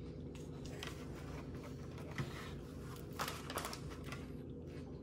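Faint rustling and a few light taps as kinetic sand is handled and pressed into a small plastic mold, over a steady low hum.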